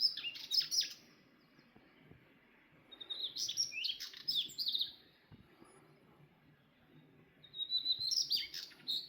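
A bird singing three short bursts of quick, high chirping notes, several seconds apart, with quiet between them.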